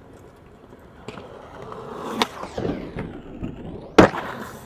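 Skateboard wheels rolling on concrete, with a sharp clack of the board about two seconds in. About four seconds in comes a louder slap as the board hits the ground under the skater.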